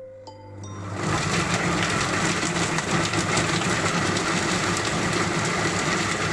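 A couple of short beeps from a Monsieur Cuisine Smart kitchen machine as its blade starts. The blade winds up over about a second and then runs steadily at speed 5, chopping beetroot, carrot, parsley root and leek in the bowl.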